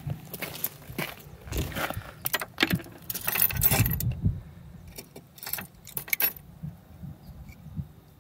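Small pieces of cast zinc clinking and jingling against one another as they are handled, a busy run of metal clinks that dies away about six seconds in.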